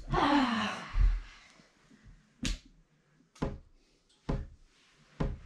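A soft low thump about a second in, then four short sharp clicks or knocks, evenly spaced a little under a second apart, with near silence between them.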